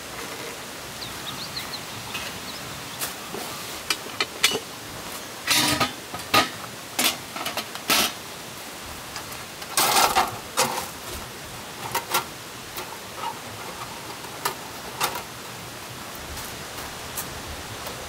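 Metal clinks and clanks as steel tube legs and a stainless-steel folding table top are handled and fitted together, with the loudest clatters about six seconds in and again around ten seconds in. A steady hiss runs underneath.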